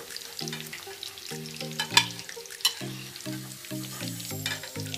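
Hot oil sizzling and crackling as battered chicken pieces deep-fry and are lifted out with a slotted metal spoon, with two sharp clicks about two seconds in. A simple background tune of short notes plays under it.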